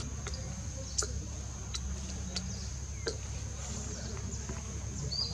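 Outdoor ambience: a steady high-pitched insect drone with a low rumble, a few sharp clicks spaced about a second apart, and a short high chirp near the end.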